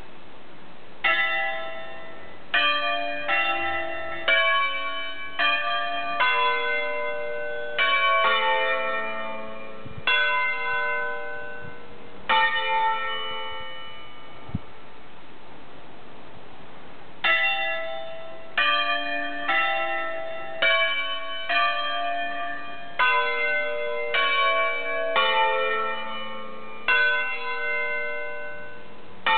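Five church bells cast by Roberto Mazzola in 1952, tuned A, B, C sharp, D and E, rung in concert on an electrified Ambrosian system played by hand: single ringing strokes of different pitches follow one another as a tune. The strokes begin about a second in, stop for about four seconds midway, then start again.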